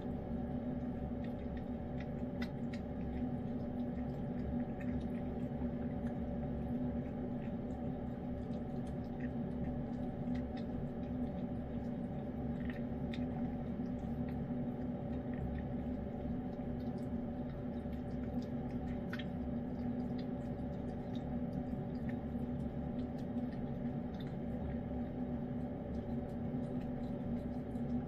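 Steady low hum with several fixed tones, and over it faint, scattered wet clicks of a cat licking and eating soft wet food from a bowl.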